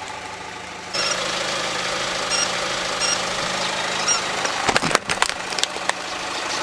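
Car engine idling next to the tyre, with a few sharp crackling snaps nearly five seconds in.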